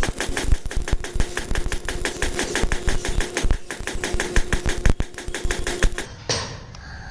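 A rapid run of sharp mechanical clicks, several a second, over a faint steady hum, stopping about six seconds in.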